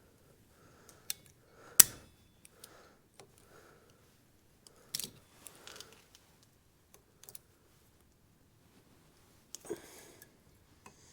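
Small hand tools clicking and tapping on metal while working at a bent cotter pin in the axle hub: sharp isolated clicks, the loudest about two seconds in, with short clusters around five and ten seconds.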